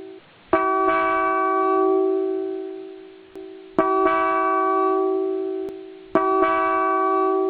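Mitsuba Dolce II transistor horn sounding a bell-like chord in three blasts, each starting suddenly and fading over about two and a half seconds, with a short blip between the second and third.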